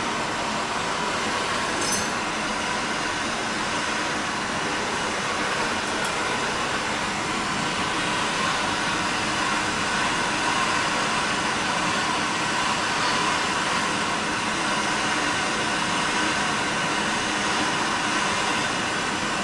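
Handheld gas torch burning with a steady rushing hiss as its flame heats a copper pipe joint for sweat soldering.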